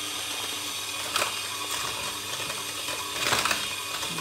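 Handheld electric mixer running steadily, its beaters whisking eggs and sugar in a bowl, with a couple of short sharp knocks about a second in and again past three seconds.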